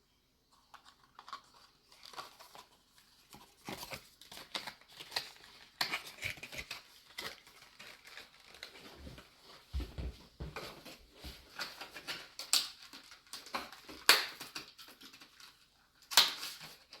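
Cardboard and plastic packaging of a CPU retail box being opened and handled: a steady run of rustling, crinkling and light clicks, with a few louder knocks.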